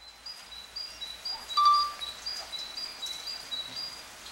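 A bird singing outdoors: a high two-note phrase repeated over and over. About one and a half seconds in, a brief steady whistle-like tone, lower in pitch, is the loudest sound.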